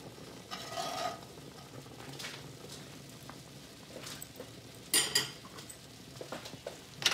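Metal slotted spatula stirring a boiling cream sauce in a cast iron skillet: light scraping and small ticks, with a sharp utensil clink about five seconds in and another near the end.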